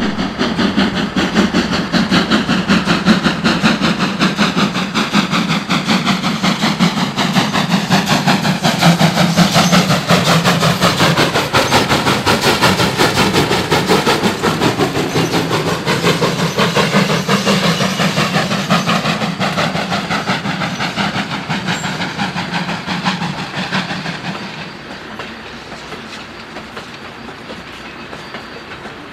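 WWII Kriegslok steam locomotive working a loaded coal train past, its exhaust beats and running gear making a fast, even rhythm, with the loaded wagons clattering along behind. The sound drops to a quieter rolling of wagons a few seconds before the end.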